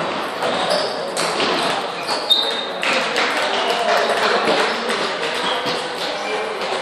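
Table tennis balls clicking on tables and bats, many small taps in no steady rhythm, with a couple of brief high squeaks about one and two and a half seconds in.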